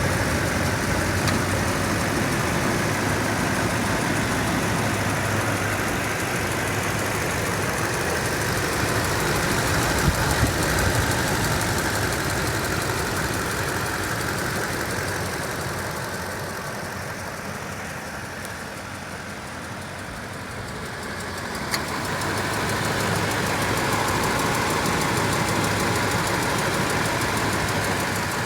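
2007 Toyota Tundra's 5.7 L V8 engine running with a steady ticking that keeps pace with engine speed, heard mainly from the driver's side once the engine is warm. The dealer calls the tick normal.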